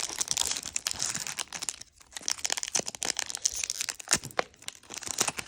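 Yu-Gi-Oh booster pack's foil wrapper being crinkled and torn open by hand: irregular crackling and rustling with a short pause about two seconds in.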